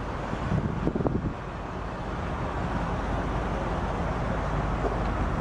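Wind buffeting the microphone, with a few stronger gusts about a second in, over a low steady rumble.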